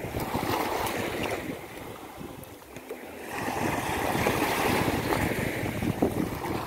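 Sea waves breaking and washing up a sandy beach: one wave fades out, and a second, louder one comes in about halfway through.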